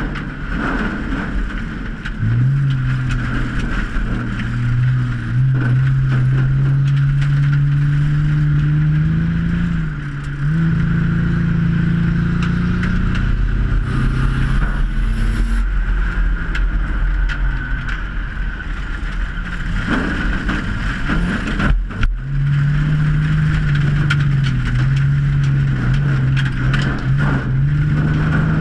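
Six-cylinder engine of a 2003 Ford Taurus race car, heard from inside the cabin, running with its pitch stepping up and down several times. About three-quarters of the way through there is a brief sharp break before it picks up again.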